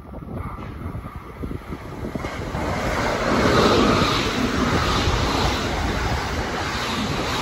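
JR West Shirasagi limited express electric train approaching and passing a station platform at speed: a rushing noise of wheels on rail and moving air that swells over the first few seconds, is loudest from about three seconds in, and stays strong as the cars go by.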